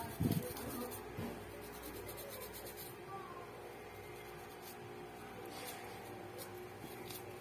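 A toothbrush scrubbing a phone's charging port and circuit board: soft, scratchy bristle rubbing, with a handling bump right at the start.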